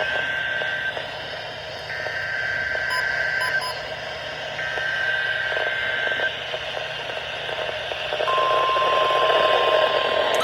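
NOAA Weather Radio Emergency Alert System SAME header, heard through radio static: three screeching bursts of digital data tones about a second apart. About eight seconds in, a steady single-pitch weather radio alert tone starts and holds.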